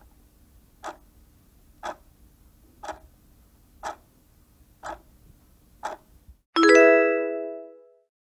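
Countdown timer sound effect: clock ticks once a second, seven in all, then a loud bell-like ding that rings and fades over about a second and a half, marking time up.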